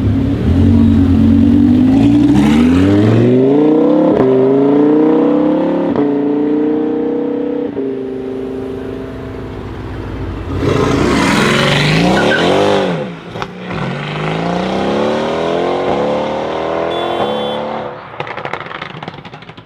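Mercedes-AMG GT R twin-turbo V8 with a loud aftermarket exhaust accelerating hard, its pitch climbing through several quick upshifts as it pulls away and fades. Then a loud close pass with a sharp dip in pitch, followed by another acceleration up through the gears that fades out.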